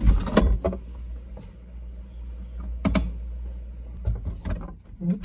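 Refrigerator door pulled open, a sharp click as it unseals, then a steady low hum with scattered light clicks and knocks from the bottles and shelves in the door, heard from inside the fridge.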